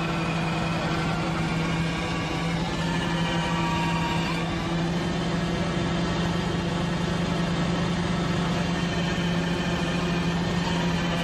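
Cherry-harvesting machine with a tree shaker and catching conveyor running steadily, an even engine hum with no change in speed.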